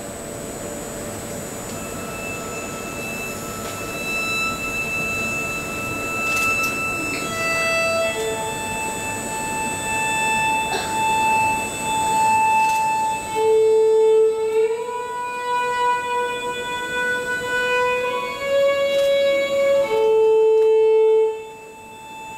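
Violin playing slow, long held notes, sliding up in pitch between notes about halfway through; the last loud note cuts off about a second before the end.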